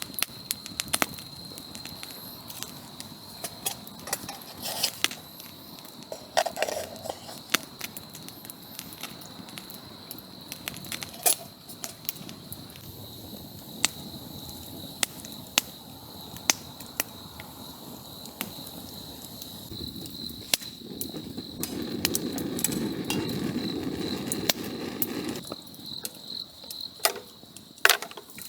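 Wood campfire crackling with sharp irregular pops, over a steady high-pitched chirring of insects. A louder, low rushing noise swells for about five seconds a little after twenty seconds in.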